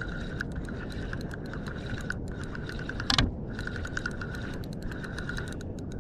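Spinning reel being cranked fast to wind up a bait jig loaded with slimy mackerel. Its gears give a steady high whine with fine ticking, pausing twice. A short knock about three seconds in, over a low rumble.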